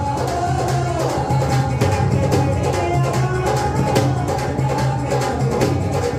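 Live devotional music: a dholak drum played in a steady rhythm under an amplified sung melody.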